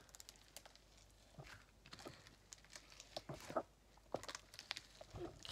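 Sticky PVA-glue slime being kneaded and pressed by hand on a tabletop: faint, irregular little clicks and squelches as it pulls away from the hands and the table.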